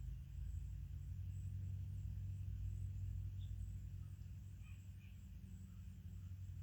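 Outdoor ambience: a steady low rumble with a few faint, short, high chirps from small birds, the clearest in the second half, over a faint high pulsing hiss.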